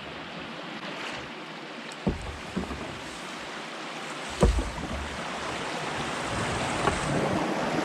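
Rushing water of a small drop in a creek, a steady wash that grows slowly louder, heard from a canoe, with a few dull knocks, the loudest about two and four and a half seconds in.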